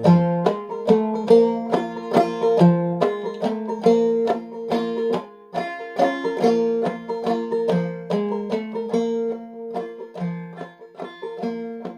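Clawhammer banjo in sawmill tuning, capoed at the third fret, playing an instrumental break of a 3/4 tune in F#: a steady run of plucked notes over a ringing drone string.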